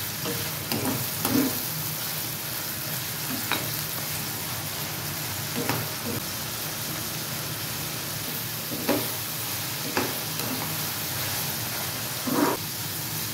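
Peas, capsicum, onion and green chillies sizzling steadily in hot oil in a frying pan while being stir-fried, with a metal spatula scraping and knocking against the pan about seven times.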